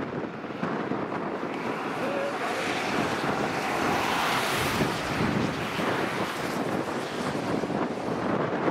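Strong wind blowing across the microphone, a steady rushing noise that swells briefly about halfway through.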